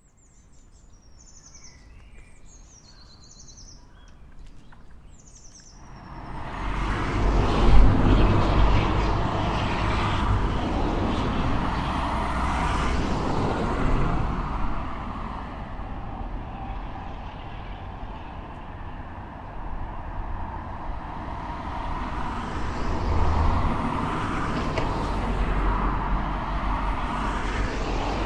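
Faint birds chirping over a quiet outdoor background, then from about six seconds in, medium road traffic heard close: cars passing one after another, tyre and engine noise with a low rumble swelling and fading with each pass.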